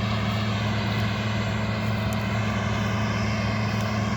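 Combine harvester running steadily while harvesting, a constant low engine drone over the even noise of the machinery.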